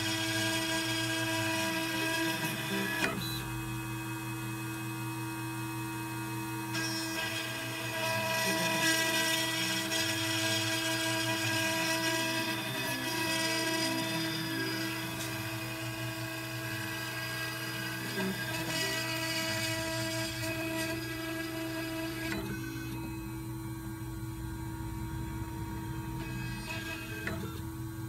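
CNC rotary engraving machine engraving a glass champagne bottle: a steady motor whine with several held tones. The sound changes as the cutter head moves, about 3, 7 and 22 seconds in, and there is a single sharp tick near the end.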